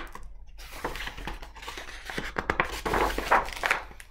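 Paper rustling and crinkling as a page of a large picture book is turned and handled, a dense crackle with many small clicks starting about half a second in and dying away near the end.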